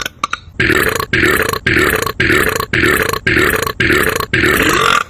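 A man's loud burp repeated over and over at an even pace, about two a second, each one the same short belch with a rising pitch, starting about half a second in.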